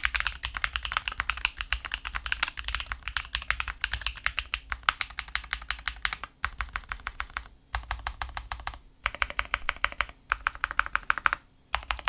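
Fast typing on a KBDFans Maja V2 Alice-layout mechanical keyboard, unmodified from stock: a dense run of keystroke clacks with a few short pauses.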